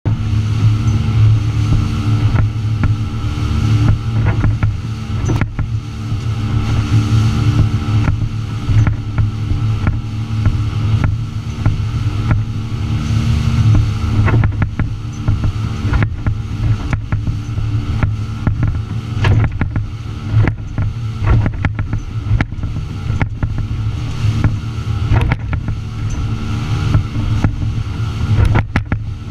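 Outboard engines of a Mako 261 center-console boat running steadily at speed, a constant low drone. Frequent short knocks as the hull slaps through the chop, over a rush of wind and spray.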